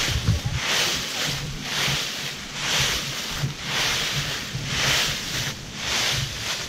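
Footsteps shuffling through dry fallen leaves, a rustling crunch about once a second.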